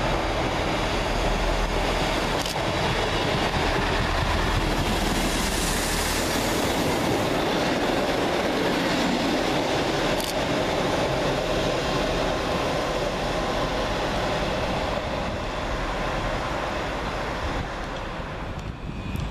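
East Midlands Railway Class 158 and Class 153 diesel multiple units running past at close range: diesel engines and wheels on the rails in a steady loud rumble, with a couple of sharp clicks from the wheels. It fades as the train draws away near the end.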